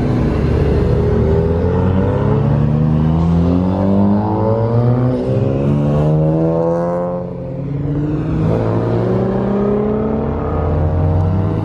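Car engines revving and accelerating. The pitch climbs for several seconds, drops sharply about seven seconds in, then climbs again near the end.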